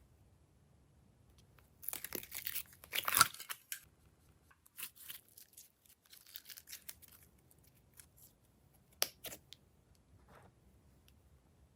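Close-up handling noises while slime is mixed: a loud burst of crackling and tearing about two seconds in, then scattered soft crackles and clicks, and two sharp clicks near the end.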